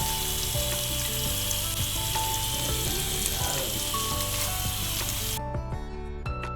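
Food sizzling in hot oil in a pan, a dense crackling hiss that cuts off abruptly about five seconds in. Background music plays underneath.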